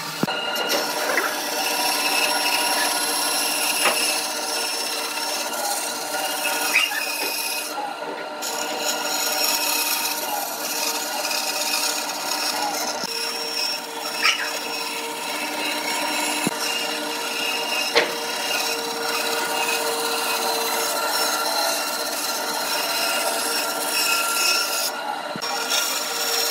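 Bandsaw running with a steady hum while its blade cuts a curve through a wooden frame corner, with occasional small ticks.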